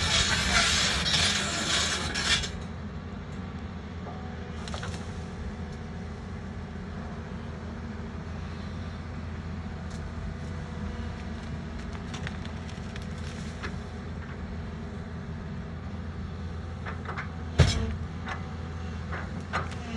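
Doosan DX140 excavator's diesel engine running steadily with a low rumble. A loud rasping scrape covers the first two seconds and cuts off, and there is one sharp knock near the end.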